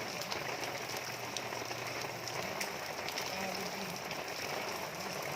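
Steady rain falling, a continuous hiss with many single drops ticking sharply through it. Faint low voices are heard behind it around the middle.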